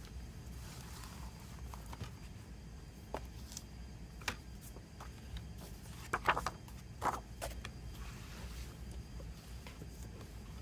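Handling sounds of a cardboard box and a digipak with clear plastic disc trays being lifted, slid and opened: scattered light clicks and rustles, loudest in a short cluster about six to seven seconds in, over a low steady hum.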